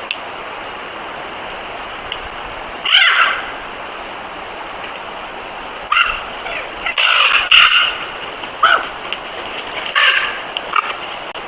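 Wolves whining and yipping in short bursts of pitched calls, one burst about 3 s in and a closer run of them in the second half, over a steady rushing background noise.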